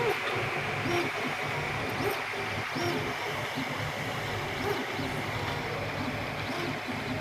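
3D printer at work: its stepper motors whine in short tones that rise and fall with each move, about once a second, over a steady fan hiss.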